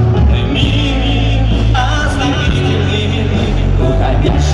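A live rock band playing loudly, with a heavy bass line and a voice singing over the music.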